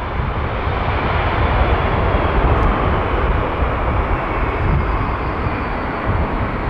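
Airbus A330-200's Rolls-Royce Trent 700 turbofans at takeoff thrust as the airliner rotates and lifts off: a steady, dense jet noise with a deep rumble underneath and a faint high whine slowly falling in pitch.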